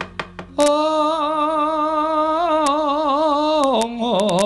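A Javanese wayang dalang's sung suluk: one long held vocal note with a wavering pitch that drops near the end, then the start of another wavering phrase. Rapid sharp knocks of the dalang's keprak come in the first half-second and again near the end.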